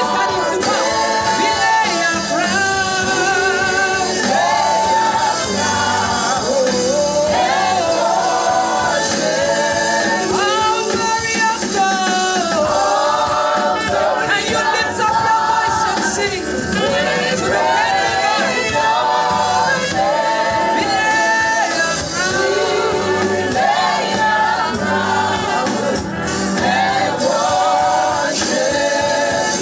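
Gospel worship singing by a choir or congregation over instrumental accompaniment, steady and continuous.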